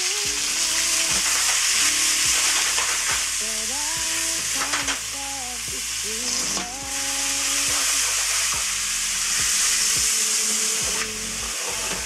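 Roughly chopped onion, leek, carrot and celery sizzling as they are sautéed in a stainless steel stockpot, with short clicks of stirring now and then.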